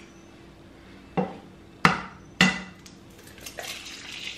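An egg knocked three times against the rim of a frying pan, sharp taps a little over half a second apart, with one softer tap after. Near the end the egg drops into the hot pan and starts to sizzle.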